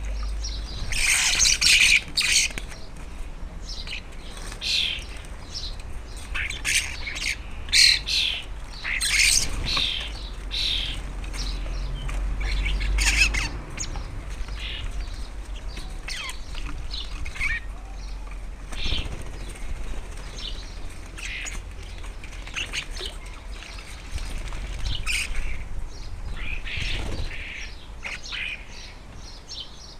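Garden birds calling, many short calls overlapping and coming in clusters, with a low steady rumble underneath.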